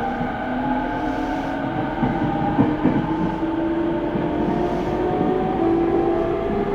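Running sound of a Tokyo Waterfront Area Rapid Transit 70-000 series electric train under way: the motor whine rises slowly in pitch over steady wheel and rail noise, with a few knocks about two to three seconds in.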